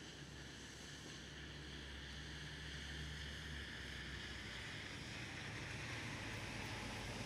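Rainy-day city street ambience: a steady low engine hum from traffic under an even hiss of wet-weather noise that slowly grows louder.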